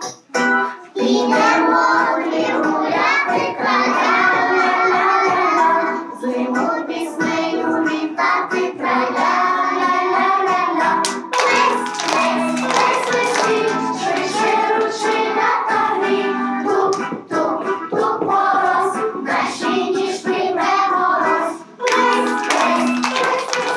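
Young children singing a song together over keyboard music, clapping their hands along, with the clapping growing thicker about halfway through.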